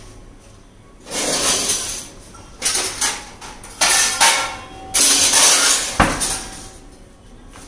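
Lower kitchen cabinet drawer being slid open and rummaged, with stainless steel plates clattering and ringing as one is pulled out, in four bursts and a sharp knock near the end.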